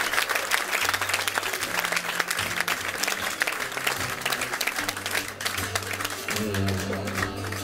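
Audience applauding, the clapping thinning out toward the end. About six seconds in, an acoustic guitar starts playing a few notes.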